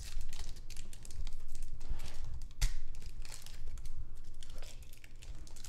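Foil trading-card pack wrapper crinkling as it is torn open by hand: irregular crackles, with a sharper crackle about two and a half seconds in.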